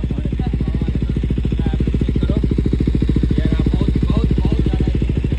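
KTM Duke 390's single-cylinder engine idling steadily through a freshly fitted Akrapovic full-system exhaust, a fast, even beat of exhaust pulses.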